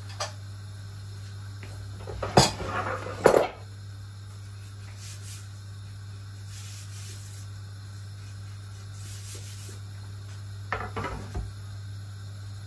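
A few sharp clatters of kitchen utensils and pots over a steady low hum: two loud knocks close together about two to three seconds in, and a couple of lighter ones near the end.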